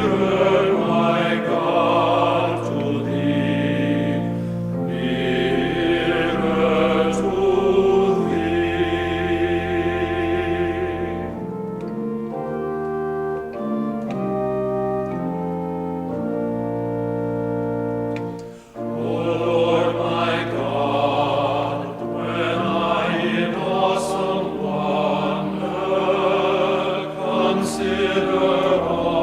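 Music: a choir singing with organ accompaniment in long held notes. The voices drop out for a few seconds in the middle, leaving the organ alone, and come back after a brief break.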